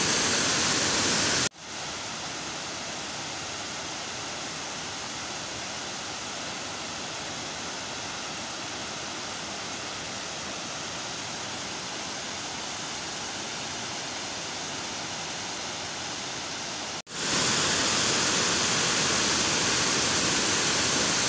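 River water pouring over a concrete weir: a steady rushing of water. It drops suddenly to a quieter rush about a second and a half in and jumps back to full loudness near the end.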